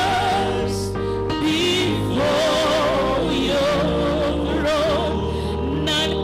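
Gospel worship music: a singer holds long notes with a wavering vibrato over sustained instrumental chords and a steady bass.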